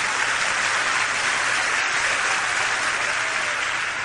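Concert audience applauding, a dense steady clapping that holds at full level throughout.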